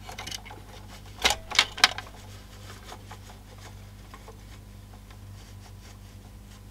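Plastic clicks and clatter from a CD player's tray loading mechanism being handled and turned over: a few light clicks, then three sharp clicks about a second in, then only a low steady hum.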